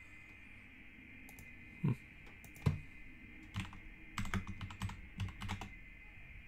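Typing on a computer keyboard: two separate clicks about two seconds in, then a quick run of keystrokes from about three and a half to five and a half seconds in.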